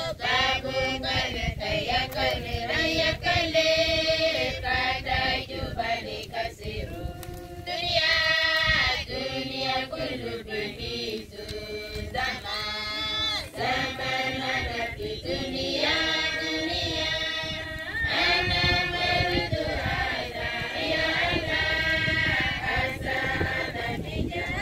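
Church congregation of women and children singing together in chorus, phrase after phrase with short breaks between lines.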